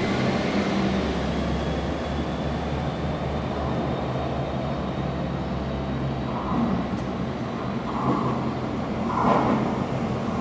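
Comboios de Portugal Series 3400 electric multiple unit approaching the station: a steady low rumble and hum, with a few short louder patches of noise in the second half.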